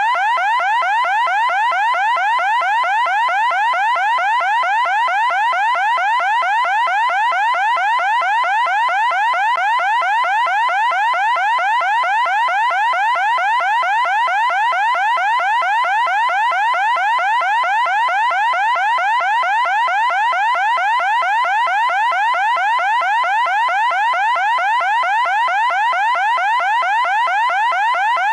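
Electronic siren sounding in a fast, unbroken series of rising sweeps, several a second, at a steady loud level.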